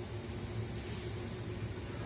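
Steady low hum and rumble with a faint hiss over it, unchanging throughout.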